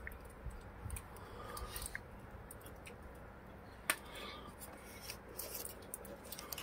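Faint handling noise: small scattered clicks and rubbing, with one sharper click about four seconds in, as fingers work the small focus adjustment on a rifle-scope night vision unit.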